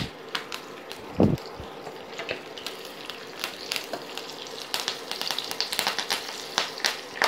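Hot oil sizzling and crackling in a frying pan as cumin seeds, dried red chillies and fresh curry leaves temper, the crackle of a tadka. A metal slotted spatula stirs through the pan in the second half, when the crackling grows denser, and there is a brief low thud about a second in.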